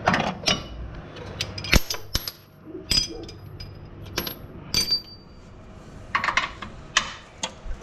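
Scattered metallic clinks and knocks of hand tools and sockets on the truck's upper control arm bolts, a few of them ringing briefly.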